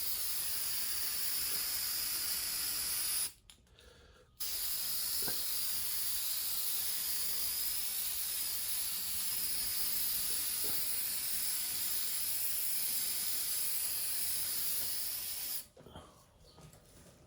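Paint being sprayed onto a transmission case, a steady hiss in two long passes: a short one, a brief pause, then one of about eleven seconds.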